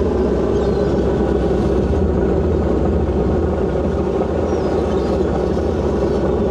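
Steady drone of a purse seiner's diesel engines running, a stack of low steady tones with no change in level.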